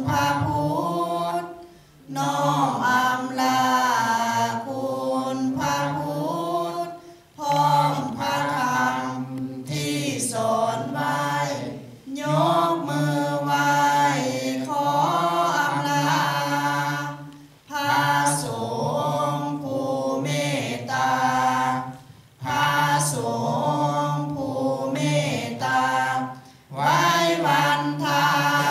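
Buddhist chant sung in unison by a group of low voices, with no instruments. The phrases are long and held on a few pitches, and the chanting breaks off briefly for breath every four to five seconds.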